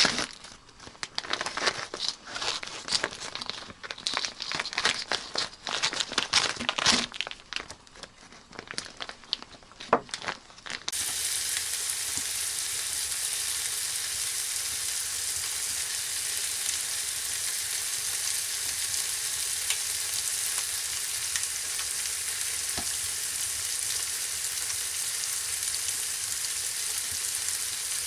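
Irregular crinkling and crunching handling noises for about the first eleven seconds, then an abrupt change to the steady sizzle of food frying.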